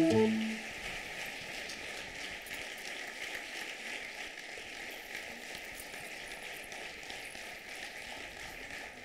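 Audience applauding steadily, a dense even patter of many hands clapping. A short loud sound comes right at the start, then the clapping carries on evenly.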